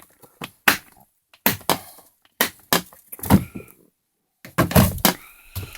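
Irregular sharp knocks and clatters, about half a dozen over a few seconds, with the loudest cluster near the end.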